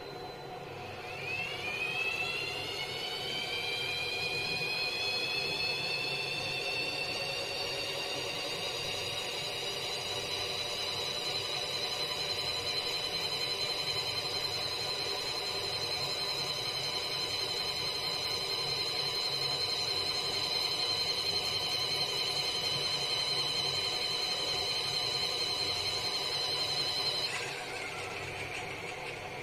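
Mini washing machine's wash motor running during the wash cycle. It gives a high-pitched whine that rises in pitch as it spins up about a second in, holds steady, then stops abruptly near the end, over a steady lower hum.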